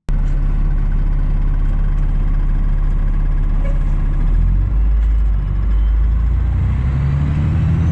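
Fire truck's diesel engine running while the truck drives, a steady low drone whose pitch drops about four seconds in and rises again near the end as the engine speeds back up.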